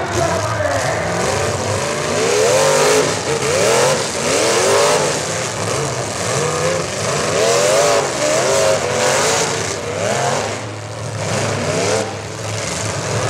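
Engines of several full-size demolition derby cars revving up and down at once, with occasional short knocks of cars striking each other.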